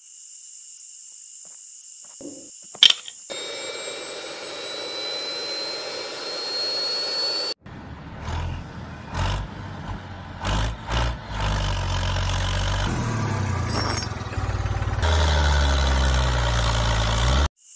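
Small electric motor of a homemade model tractor running with a thin whine that slowly rises in pitch, then a deep engine-like rumble that starts and stops abruptly in several sections.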